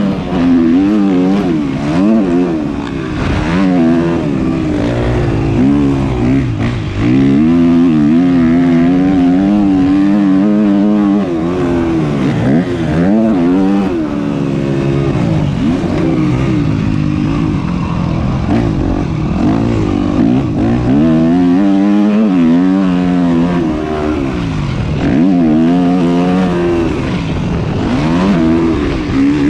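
Yamaha motocross bike's engine under hard riding, revving up and dropping back over and over as the rider works the throttle and shifts gears.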